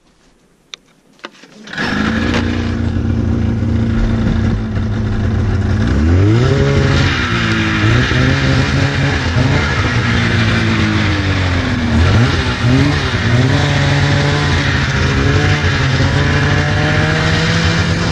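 The twin-cylinder two-stroke engine of a 2004 Polaris RMK 800 Vertical Edge snowmobile, running under load as the sled rides over snow. Its pitch rises sharply and drops back several times as the throttle is worked. It comes in about two seconds in, after two short clicks.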